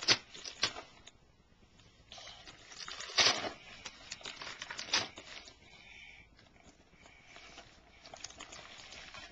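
Wrapping paper being torn open and crinkled by a small child's hands, in a series of short ripping bursts, the loudest about three seconds in.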